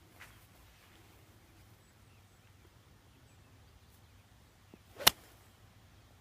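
A golf club swishes briefly through the downswing and strikes the ball once with a single sharp crack about five seconds in.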